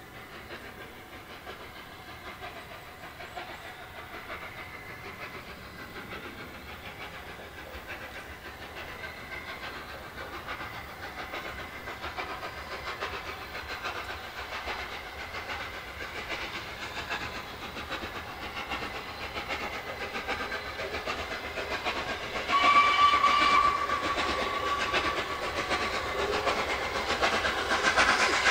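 Gresley A3 steam locomotive 60103 Flying Scotsman, a three-cylinder Pacific, approaching at speed with its train, the sound growing steadily louder. About 22 seconds in it gives one steam whistle blast of about a second and a half, and the passing locomotive and train are louder still after it.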